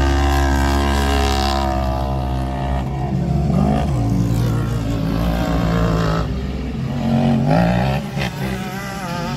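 Side-by-side UTV engine running at a steady idle, then revving up and down several times, with a couple of sharp clicks near the end.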